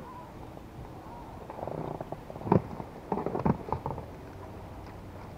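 Fishing tackle being handled in an inflatable boat: a soft rattle about a second and a half in, then a sharp knock and a quick run of clicks and knocks as a rod is lifted.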